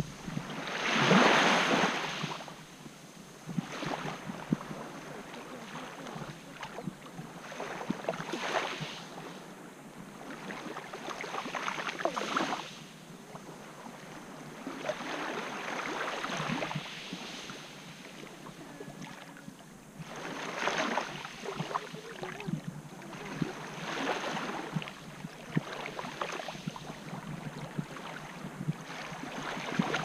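Small waves lapping onto a shore of coarse quartz grains. Each wash swells and fades every few seconds, and the loudest comes about a second in.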